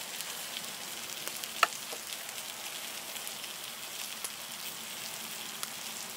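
Steady crackling and hissing from a campfire and food cooking over it, with scattered small pops and one sharp click about one and a half seconds in.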